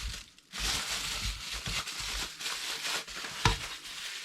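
Plastic packaging crinkling as the mini lanterns are handled, followed by a single sharp click about three and a half seconds in.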